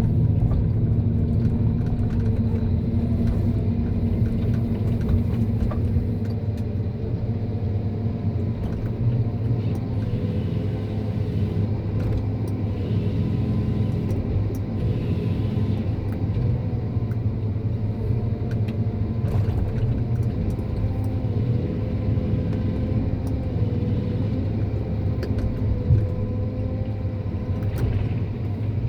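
John Deere 1270G eight-wheel harvester running steadily with a low engine drone, its pitch drifting slightly as the machine works, with a few faint clicks and knocks.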